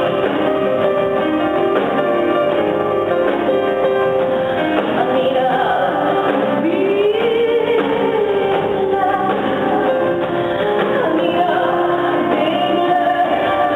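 Live concert music: a woman singing over instrumental accompaniment in a large hall, with a sustained, gliding vocal line in the middle.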